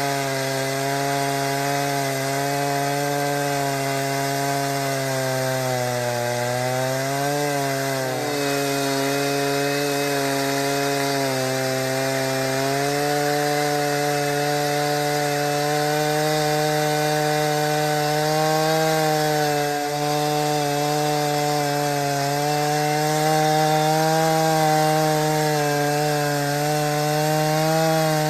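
Homelite 340 two-stroke chainsaw running hard through wood, its engine pitch holding steady. The pitch sags and recovers a couple of times partway through as the saw is loaded in the cut.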